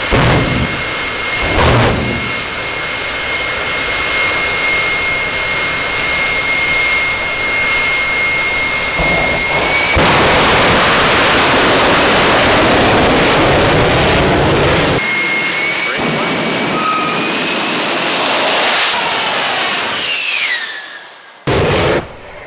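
General Electric J79 afterburning turbojet in a jet truck, running with a steady high turbine whine. Two loud bursts from the truck's stack flame throwers come near the start. About ten seconds in it swells into a much louder, rushing roar for several seconds as the afterburner flame is lit, then the whine returns and glides down in pitch near the end.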